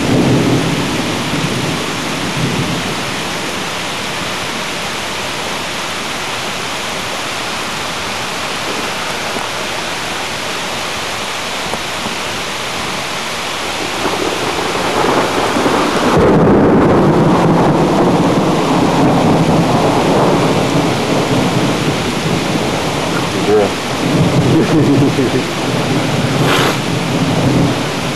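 Thunderstorm: steady rain hissing throughout, with thunder rumbling at the start. A long, heavy rumble of thunder builds about halfway through and stays loud to the end.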